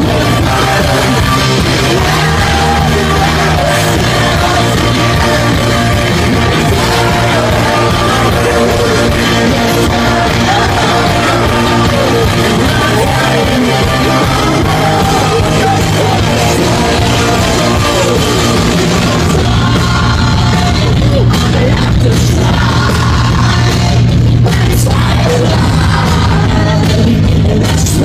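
A live rock band playing loudly, with electric guitars, drums and a singer, recorded from inside the crowd.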